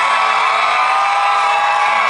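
Live rock band playing loud through a stadium PA, with sustained, sliding tones over it and the crowd cheering around the microphone.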